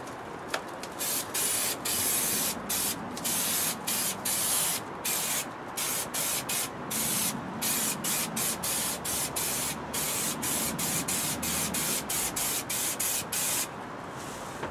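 Aerosol can of spray adhesive hissing in a long run of short bursts, about two to three a second, as glue is sprayed onto foil insulation. The spraying stops about a second before the end.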